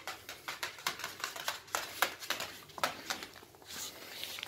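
Claws and paws of a corgi clicking and scrabbling on a laminate floor as it moves about in play: rapid, irregular taps, several a second.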